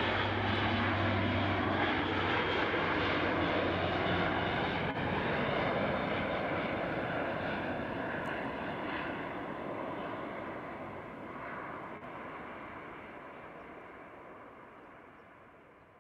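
Airbus A400M's four TP400 turboprop engines and propellers droning as the transport passes low on landing approach, with a low steady hum at first. The sound fades steadily over the second half as the aircraft moves away.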